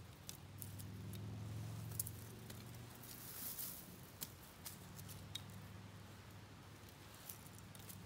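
Sparse light snaps and clicks of dry twigs being handled and laid on a bed of hot coals, with a brief rustle about three and a half seconds in. A faint steady low hum runs underneath.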